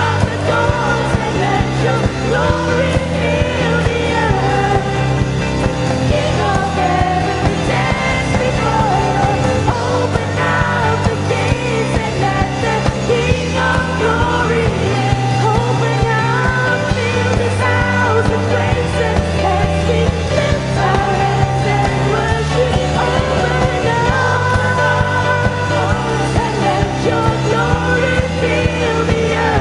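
Church worship band playing a song, with voices singing the melody over a bass line that moves note by note.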